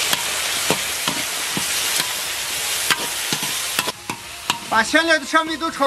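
Whole spices and chili sauce frying in hot oil in a large wok, sizzling while a metal spatula stirs them, scraping and knocking against the pan several times. The sizzle drops back about four seconds in.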